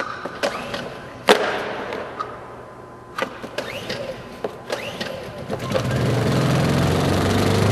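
Honda EU2000i generator's small single-cylinder four-stroke engine being pull-started on natural gas: several sharp tugs on the recoil starter, then about five and a half seconds in it catches and settles into steady running.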